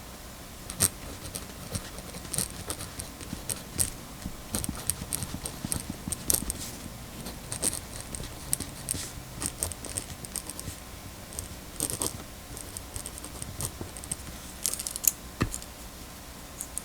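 Muji wooden mechanical pencil writing on paper, its loose parts rattling with each stroke in irregular light clicks and ticks, several a second.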